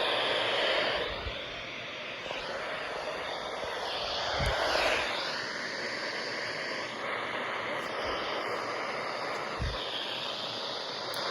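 Hissing static from a weather radio receiver with no programme audio, its noise shifting slowly in tone, broken by three short low thumps.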